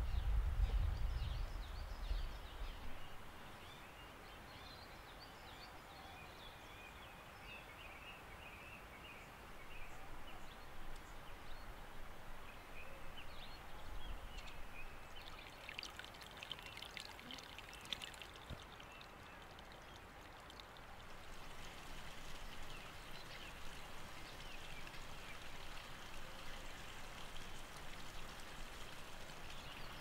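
Forest ambience: water running or trickling steadily, with small birds chirping through the first part. There is a low rumble in the first few seconds and a patch of crackling clicks about halfway through.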